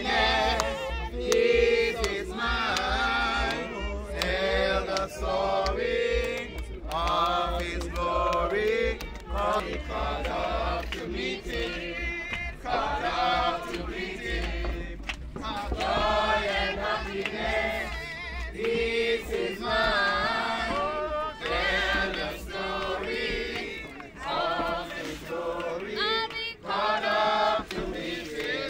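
A group of mourners singing a hymn together, many voices in unison.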